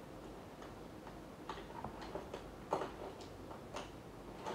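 Light, irregular clicks and taps, about one every half second, of small makeup containers and tools being handled.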